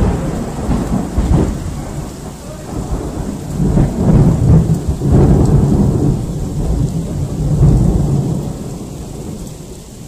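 Loud thunder rumbling and rolling over falling rain, swelling a few times and dying away near the end.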